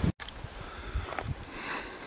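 Wind rumbling on the microphone, cut off sharply just after the start. Then a quieter outdoor hiss with a few light steps on a stony path about a second in.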